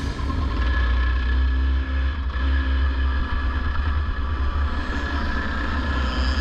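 Go-kart's two-stroke engine running on track, heard through the driver's helmet camera with a strong, steady low rumble.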